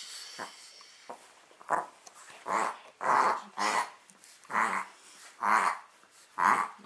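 A Chihuahua makes a string of short vocal sounds, about seven of them unevenly spaced, starting nearly two seconds in.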